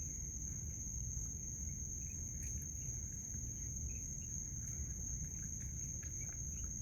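Crickets chirping in a steady, unbroken high trill over a low background rumble, with a few faint ticks.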